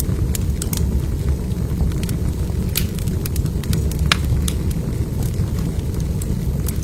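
Wood fire burning in a fireplace: a steady low rumble of the flames with scattered sharp crackles and pops, two of them louder about three and four seconds in.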